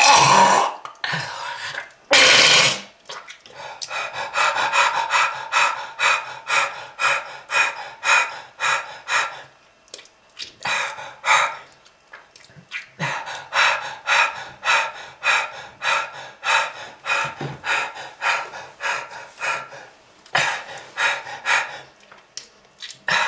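A person, a smoker, coughing harshly twice at the start and then gasping for breath in quick, laboured pants of about two a second, with short pauses between runs: the struggling breathing of smoking-damaged lungs.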